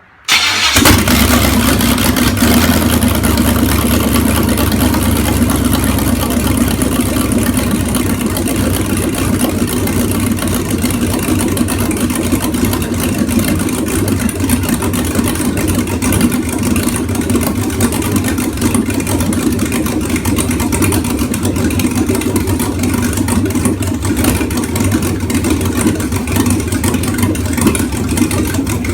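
Rebuilt 6.0 L LQ4 V8 on an engine test stand firing up about half a second in and then running steadily and loudly out of open exhaust manifolds with no pipes attached. It is running on a universal 5.3 tune that is not matched to its custom boost cam, a tune the owner doesn't like.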